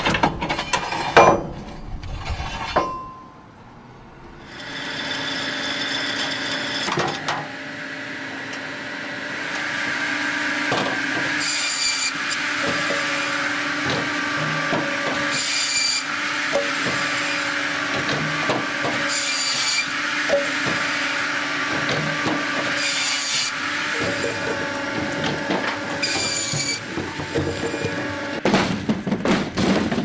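Firewood processor at work, cutting and handling logs. A few knocks, then a steady machine hum from about four seconds in. Over it comes a sharper high cutting sound about every four seconds, and wood knocks against metal.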